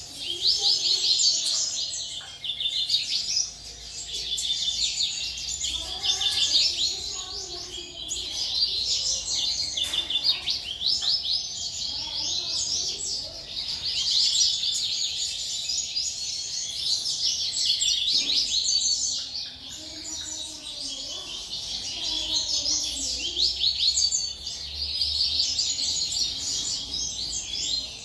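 Many small birds chirping and twittering together, a dense, continuous chorus of quick high notes.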